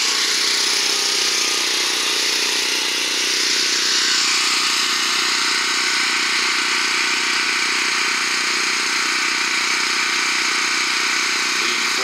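Honeywell 7500-watt portable generator running steadily on its stock muffler, heard from ten feet with the exhaust pipe pointed straight at the microphone; a phone meter reads it at about 85 dB.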